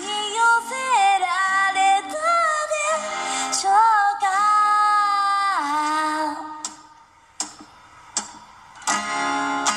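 A woman sings to her own acoustic guitar, ending a phrase on a long held note about six and a half seconds in. A short pause follows with a couple of single strums, then the strumming picks up again near the end.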